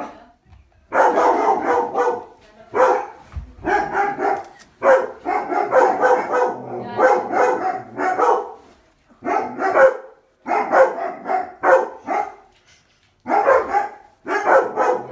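A dog barking over and over, in loud runs of barks about a second long with short pauses between them.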